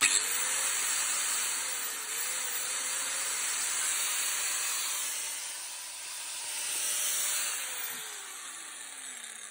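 Makita GA5034 angle grinder, with no disc fitted, switched on and running free with a steady whirring hiss, then switched off near the end and spinning down with a falling whine. It starts and runs normally, although it was reported as not switching on.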